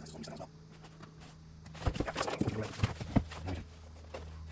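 Cardboard scraping and rustling with several knocks of a hard plastic carrying case as it is worked out of its cardboard sleeve, loudest from about two to three and a half seconds in.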